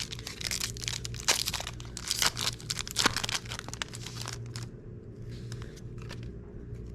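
Foil booster pack of trading cards being torn open and crinkled: dense crackling and tearing for about four and a half seconds, then only a few scattered rustles.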